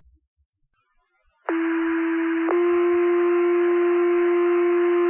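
Two-tone sequential paging tones on a fire dispatch radio channel, the alert that sets off the volunteer firefighters' pagers. After a radio click and a short pause, a low steady tone sounds for about a second, then steps to a slightly higher tone that is held for about three seconds, with radio hiss under it.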